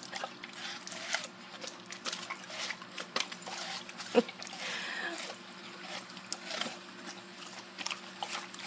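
Two Dobermans biting and chewing watermelon slices held out by hand: a run of wet crunching and smacking clicks, with a sharper crunch about four seconds in.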